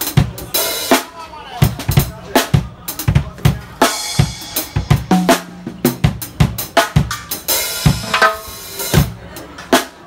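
Drum kit with a timbale, played with sticks in a busy groove of quick strikes on drums and rims over kick drum. Cymbal crashes ring out three times: about half a second in, about four seconds in, and from about seven and a half to nine seconds.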